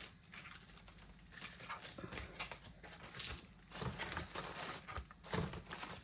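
Paper and card rustling and crinkling in irregular short bursts as savings challenge cards and envelopes are handled.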